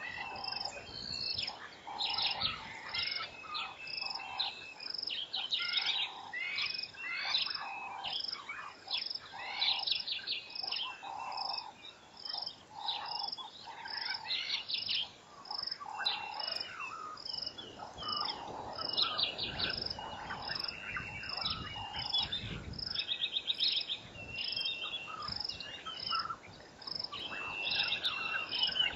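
A busy chorus of wild birds: many overlapping chirping and trilling calls, over a high pip repeated evenly a little under twice a second and a lower note repeated about once a second for much of the time.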